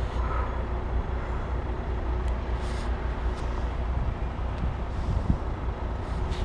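Steady low rumble of a freight train of tank wagons running on the rails, with one short thump a little past five seconds in.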